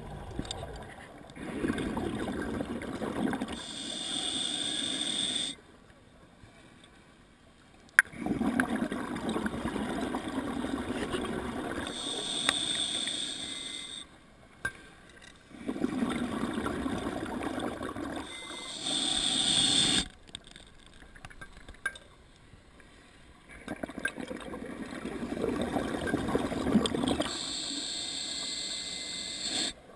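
A scuba diver breathing through a regulator underwater: four breaths, each a few seconds of bubbling rumble followed by a higher hiss, with short quiet pauses between them. A single sharp click about eight seconds in.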